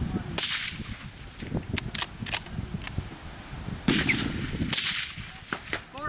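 Two shots from a suppressed bolt-action rifle, about four seconds apart, with a few sharp clicks between them.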